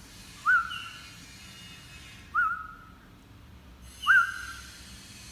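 A small bird calling three times, about two seconds apart: each call a quick upward flick that settles into a short held whistle.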